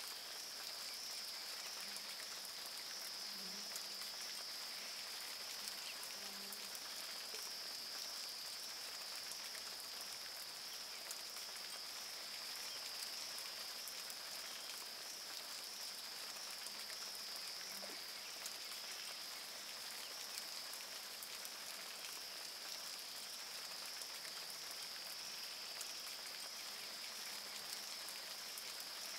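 Rainforest ambience in the rain: a steady hiss of rain and drips under a continuous high-pitched drone of calling animals, with a few faint short low calls now and then.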